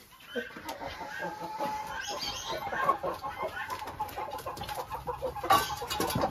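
Flock of chickens clucking, many short overlapping calls, a little louder near the end.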